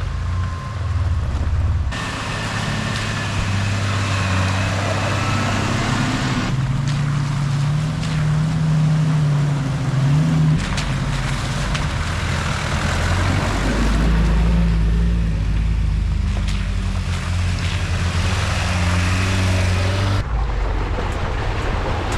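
Four-wheel-drive truck engine running under steady load while driving, with a rushing hiss of tyre and wind noise over it. The engine tone and the noise change abruptly several times.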